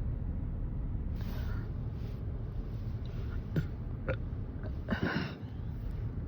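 A woman burps once, briefly, about five seconds in, after overeating. A few fainter short sounds come before it, over a steady low hum.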